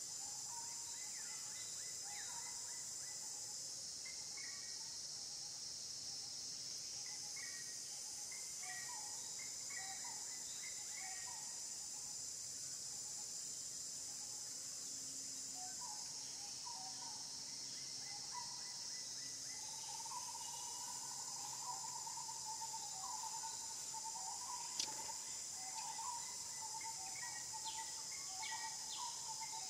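Steady high-pitched drone of insects, with scattered short chirping calls throughout. The calls come in a denser run from about twenty seconds in. There is one sharp click near the end.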